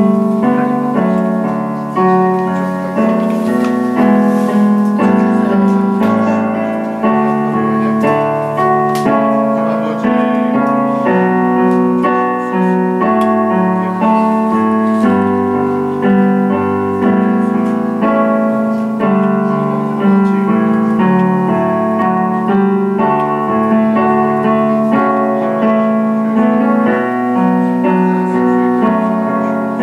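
Electric keyboard played with a piano sound, chords under a melody line, continuing without a break.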